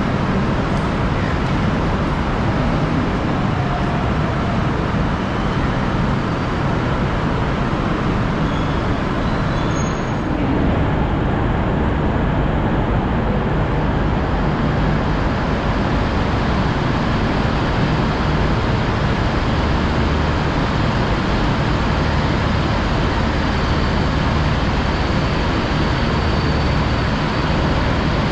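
Steady rumble of idling engines and traffic: a low engine hum under an even wash of noise.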